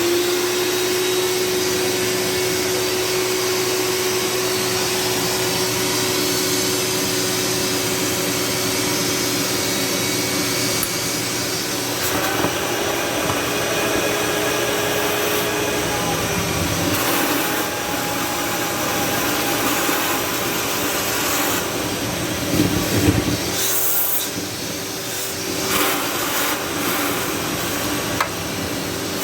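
Shop vac running with a steady whine. Its sound shifts several times in the second half as the nozzle works.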